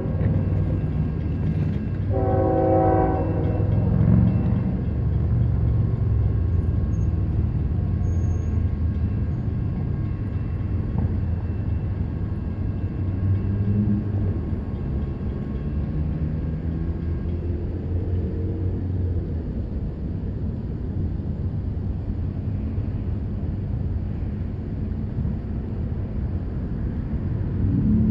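Diesel locomotives of an empty coal train rumbling steadily out of sight. A horn sounds for about a second and a half about two seconds in, and a fainter horn comes again about two-thirds of the way through.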